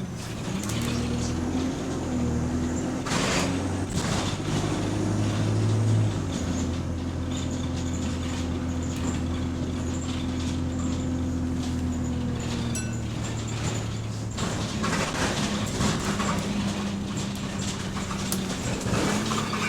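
Bus engine running as the bus drives, heard from inside the passenger saloon: its note shifts in the first few seconds, holds steady through the middle and drops away about two-thirds through. Bursts of rattling come through the body a few seconds in and again near the end.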